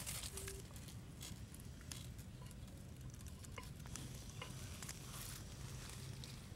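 Faint scraping and scattered light ticks of a wooden stick scooping cooked rice out of a clay pot, over a steady low background rumble.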